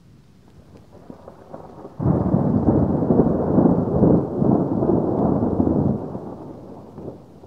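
Thunder: a loud rumble that starts suddenly about two seconds in, lasts about four seconds and dies away.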